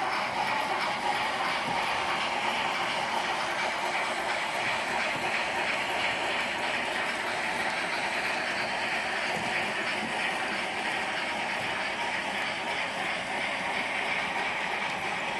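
H0-scale model freight train of hopper wagons rolling along the layout's track behind model BR 44 steam locomotives: a steady rolling rattle of wheels on rail, with faint regular ticks.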